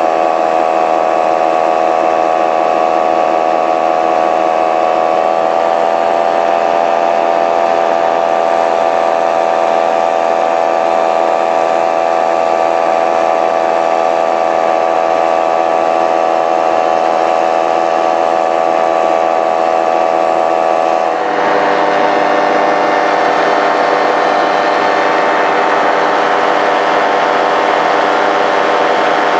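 Paramotor engine and propeller running steadily in flight, heard close up. The pitch edges up slightly about six seconds in, and about twenty-one seconds in the sound shifts abruptly to a fuller, noisier tone.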